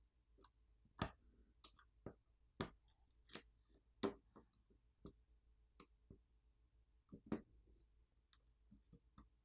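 Small, sharp clicks and taps of a plastic pry tool and metal tweezers on a smartphone's internals as flex-cable connectors are popped off and the charging-port subboard is freed. About a dozen irregular clicks, the loudest about one, four and seven seconds in.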